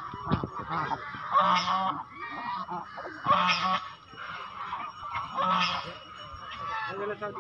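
Domestic geese honking: three loud honks about two seconds apart, with softer goose chatter between them, as the flock feeds on scattered grain.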